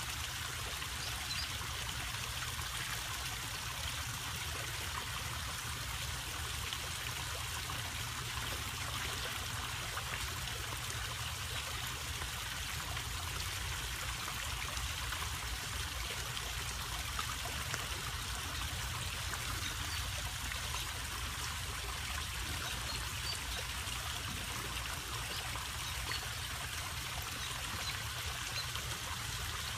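Backyard pond waterfall: water falling and trickling steadily into the pond.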